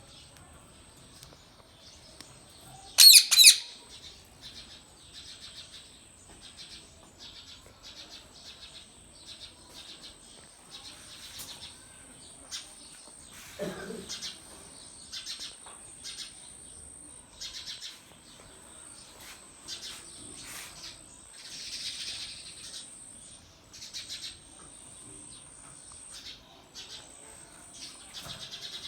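Indian ringneck parrot calling: two loud, shrill screeches about three seconds in, followed by a long run of shorter chirps and calls.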